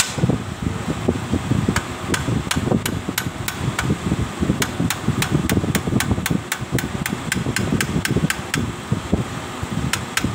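Hammer tapping on the end of a threaded steel rod in a Daiden Auto-A350 welding transformer: light, quick metal strikes, about four a second, with a short pause about four seconds in. The run stops near the end, then two more taps follow.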